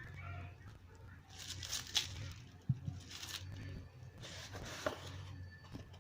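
Packaging being opened and handled: several short bursts of rustling and tearing with a few sharp clicks, over a steady low hum.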